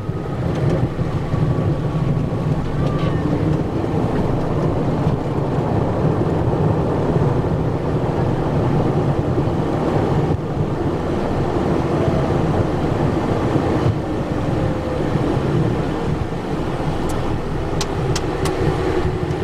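Cockpit noise of a Cessna Citation Encore's twin Pratt & Whitney Canada PW535 turbofans and wheels during the landing rollout: a steady rumble with a faint whine that falls in pitch as the jet slows. A few sharp clicks near the end.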